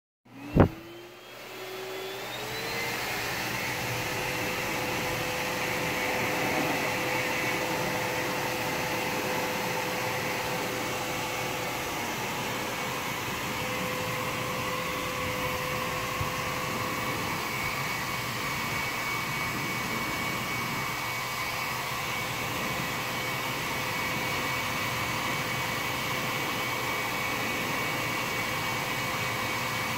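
Pet grooming blower switched on with a click, its motor spinning up in a rising whine over about two seconds, then running steadily with a constant whine and rush of air through its corrugated hose, used to blow out an Angora rabbit's wool.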